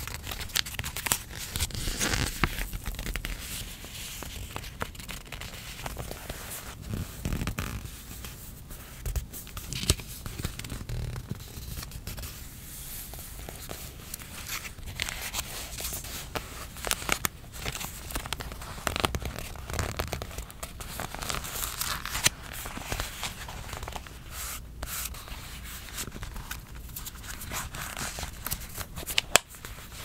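Fingertips rubbing and pressing the paper pages of a traveler's notebook, with stickers and washi tape crinkling and the paper rustling. Irregular short clicks run through it, sharpest near the end as the leather-covered notebook is closed.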